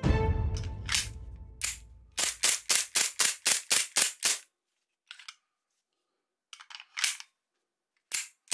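Toy gun firing: two single shots, then a rapid string of about nine at roughly four a second, followed by a few quieter scattered clicks.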